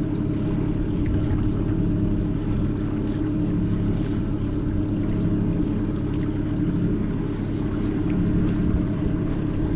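Fishing boat's motor running steadily at low trolling speed, a constant hum.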